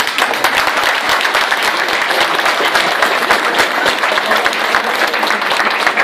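Audience applauding: many hands clapping at once, steady and loud throughout.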